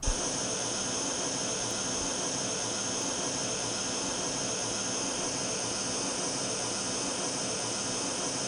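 Pink noise played from a test loudspeaker: a steady, even hiss with no highs above about 10 kHz. It is the calibration signal, used to set the playback level to 90 dB SPL at the ear simulator.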